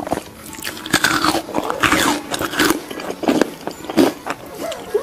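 Toddler biting and gnawing at the skin of a whole roast piglet, with irregular wet mouth and smacking noises and a few small sounds from her voice.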